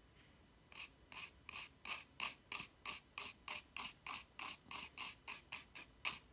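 Toothbrush bristles scratching over watercolour paper in short, quick strokes, about three a second, starting about a second in, laying down fur marks with paint.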